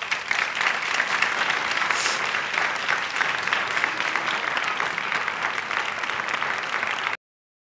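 Audience applauding steadily, a dense crackle of many hands clapping, cut off suddenly about seven seconds in.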